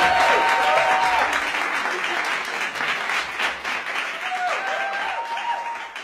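Audience applauding after a speaker's point, with a few voices calling out near the start and again around four seconds in; the clapping slowly dies down.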